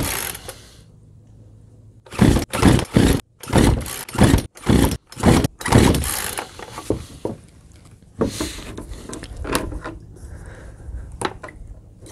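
Poulan Pro chainsaw's recoil starter cord being yanked again and again, a quick run of rasping pulls about two seconds in and a few more later, with the choked, long-stored two-stroke engine not catching.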